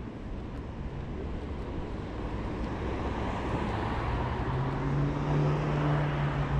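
A vehicle approaching and passing in street traffic: its noise builds over several seconds, with a steady low hum loudest about five to six seconds in.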